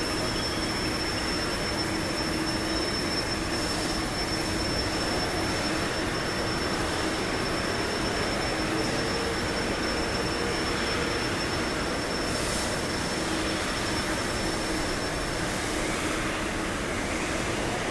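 Steady drone of factory machinery in a large workshop hall, with a thin high whine that stops near the end and a fainter low hum that comes and goes.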